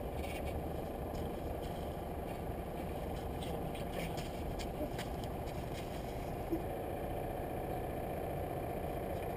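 A small RC tugboat's motor and drivetrain running steadily under way, heard from on board the boat, with a few small clicks.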